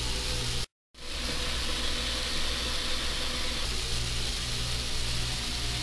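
Tap water running from a kitchen faucet into a metal stock pot in the sink: a steady hiss, with a brief dead gap just under a second in, over a low steady hum.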